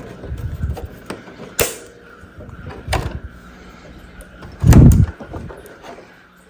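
Hard plastic parts of a Captain Cuts animatronic knocking and clicking as they are handled and fitted together. One heavy thud comes about five seconds in.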